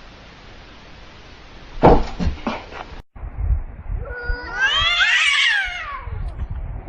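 A few short knocks, then a domestic cat gives one long, drawn-out yowl that rises and then falls in pitch.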